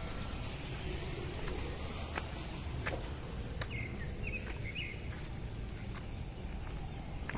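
Rural outdoor ambience: a steady low rumble of microphone handling as the phone is carried along a path, with a few faint clicks and a short run of bird chirps about four seconds in.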